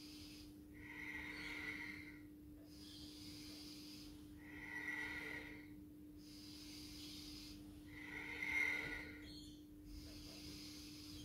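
A woman breathing slowly and audibly through the nose, long inhales and exhales in turn, each breath timed to a seated hip-circling yoga movement. There are about three full breath cycles, the loudest breath about eight and a half seconds in. A faint steady hum runs underneath.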